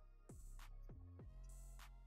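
Quiet electronic background music with a drum beat and no speech.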